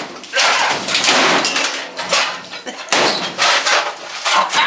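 Sheet metal of an old furnace being moved and dragged, with rattling and scraping and a sharp metal bang about three seconds in.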